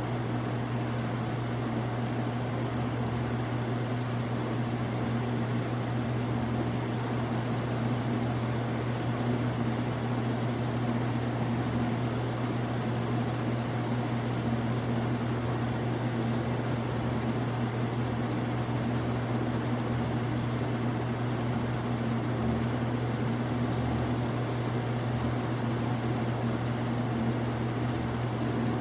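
Dayton (Marley) Leading Edge 48-inch commercial ceiling fan running steadily, with a low, even motor hum under the rush of air from the blades. Its bearings are still good, so it runs without grinding or rattle.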